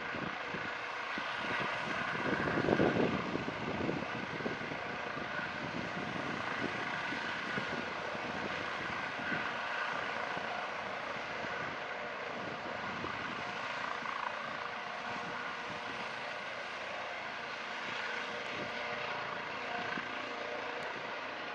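Airbus Helicopters H155 (Eurocopter EC155 B1) with twin Turbomeca Arriel 2C2 turboshafts, running with a steady high turbine whine over rotor noise. The sound swells briefly louder about three seconds in, then holds steady.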